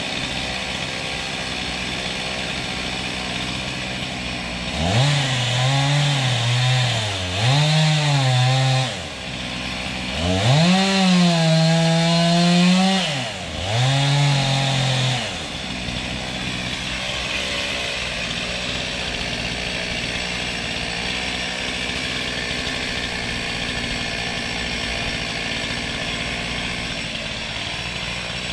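Chainsaw revving hard in repeated bursts, its pitch rising and falling as it cuts through wood, from about five seconds in until about fifteen seconds in. A steady engine drone runs underneath throughout.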